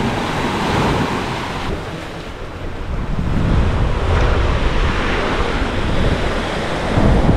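Small waves breaking and washing up a sandy beach, with wind buffeting the microphone, heavier from about three seconds in.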